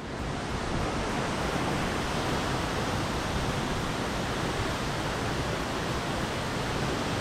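Heavy waterfall pouring: a steady, unbroken rush of water.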